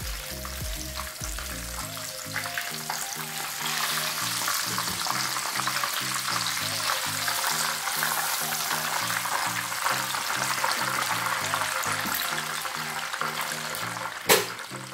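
Breaded fish pieces deep-frying in hot oil in a wok: a steady crackling sizzle that grows louder about four seconds in, with a single sharp knock near the end.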